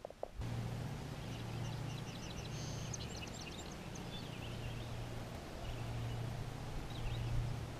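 Small birds chirping and twittering in quick, high notes, busiest a few seconds in and again near the end, over a steady low hum.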